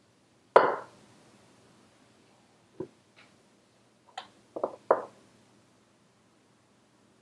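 Wooden spatula knocking against metal loaf pans while batter is spread into them: one sharp knock about half a second in, a couple of lighter taps, then three quick knocks in a row.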